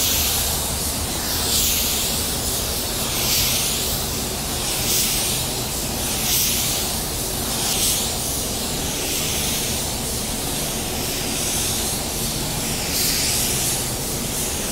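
Slim Kombat compressed-air paint spray gun hissing as it sprays a blending third coat of over-reduced metallic basecoat, the hiss swelling and easing about every second and a half.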